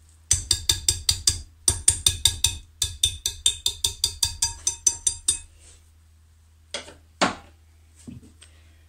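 A wire balloon whisk beats thick batter in a glass bowl, its wires clicking against the glass in a quick rhythm of about six strokes a second, with a short pause about a second and a half in. The whisking stops a little after five seconds, and a few separate knocks follow.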